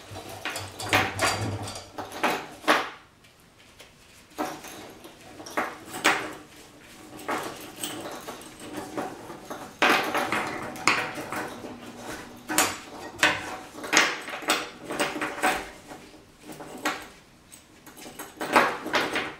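Small steel trap chain clinking and rattling in irregular bursts as it is handled and rubbed with wax, with a couple of brief pauses.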